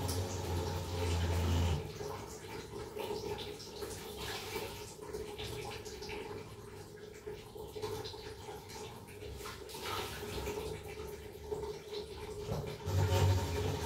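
Water running and dripping from a geyser (electric hot water cylinder) being drained at its base for an element change, with a few light knocks. A low hum sounds for the first two seconds and comes back near the end.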